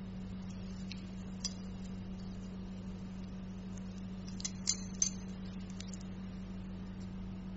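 Light metallic clicks of surgical instruments, a needle holder and forceps, during skin suturing: one about a second and a half in and a quick cluster of three or four near the middle. Under them a steady low hum.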